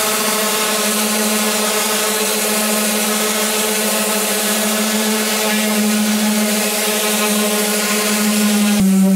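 Electric orbital sander running steadily against a wooden timber-frame post, a motor whine over the hiss of the abrasive on the wood. Its pitch drops slightly near the end.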